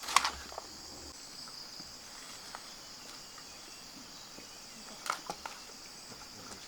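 Steady high chirring of insects, like crickets, with a sharp knock just after the start and a few quick clicks about five seconds in.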